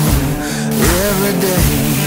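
Background music: a melody over a steady drum beat.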